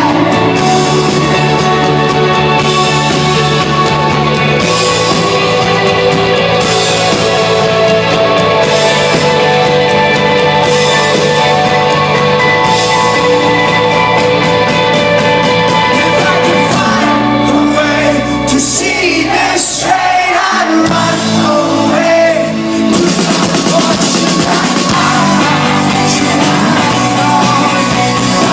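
Rock band playing live with a lead singer, recorded from the audience at a concert. About two thirds of the way through, the band sound thins for a few seconds, then the full band comes back in.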